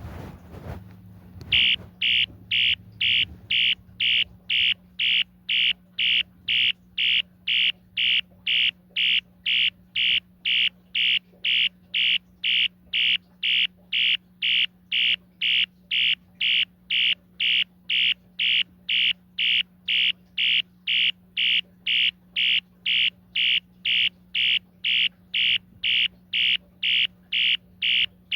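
Mid-1980s Wheelock ES-DL1-WS-24DC electronic fire alarm horn sounding in march time: even, high-pitched horn pulses about two a second, starting about a second and a half in, pulsed by a sync module.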